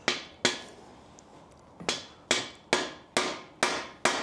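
Hammer blows on the driver of a cam bearing puller/installer, knocking the old cam bearings out of a bare small-block Ford 302 block. Sharp metallic strikes, each with a short ring: two near the start, then after a pause a steady run of about two a second.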